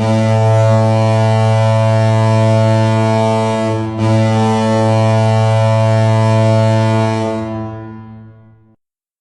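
NHL arena goal horn: a deep horn blast of about four seconds, then a second long blast that fades out.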